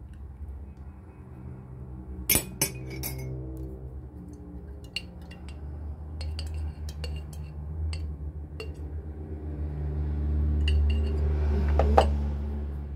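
A spoon and spatula clinking and scraping against a glass jar as yogurt is scooped out of it, in scattered sharp clinks, with the loudest knock near the end. A steady low hum runs underneath and grows louder toward the end.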